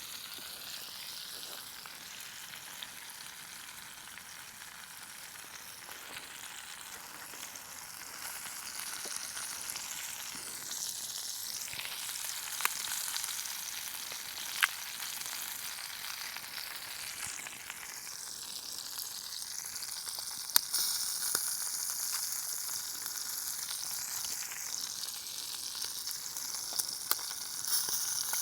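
Steak sizzling in melted butter in a pan over a campfire, a steady frying hiss that swells and fades a little, with a few sharp clicks and taps now and then.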